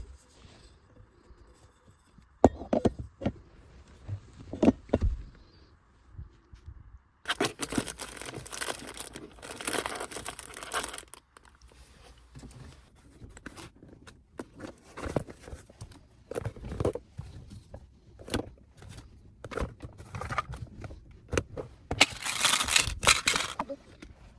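Handling noise: crinkling and rustling of packaging, with scattered knocks and scrapes. There are two longer stretches of rustling, one about a third of the way in and one near the end.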